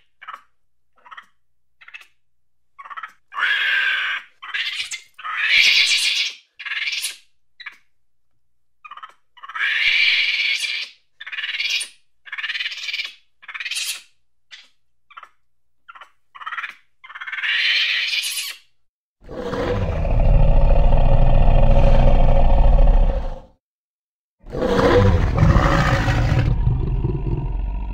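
A run of short, high animal calls and squeals, some drawn out and rising in pitch. About nineteen seconds in comes a long, loud, deep roar, and a second one follows about five seconds later.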